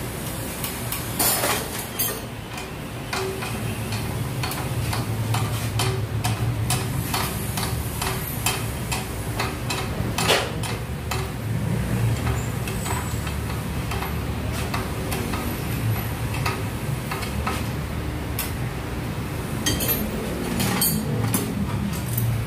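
Metal clicks and clinks of fittings, pipes and tools being handled on a 6D16 diesel injection pump fixed to a calibration test bench, over a steady low hum.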